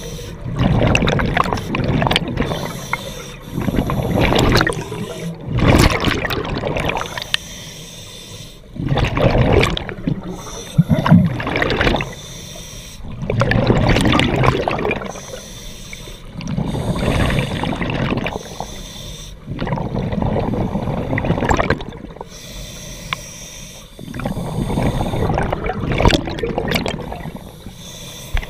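A scuba diver breathing through a regulator underwater, with rushes of exhaled bubbles in loud surges every few seconds.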